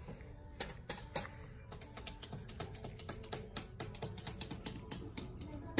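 Rapid, irregular light clicks and taps, several a second, over faint background music.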